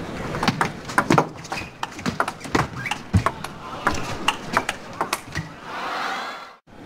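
Table tennis rally: the celluloid ball clicking sharply off the paddles and the table in quick exchanges. A short swell of crowd noise follows near the end as the point is won.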